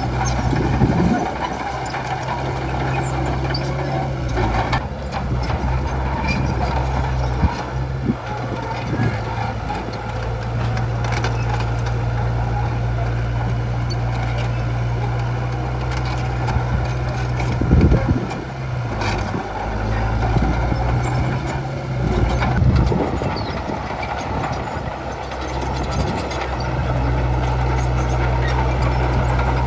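D30H bulldozer's diesel engine running steadily under load, its note dipping and recovering several times, with a few sharp clanks.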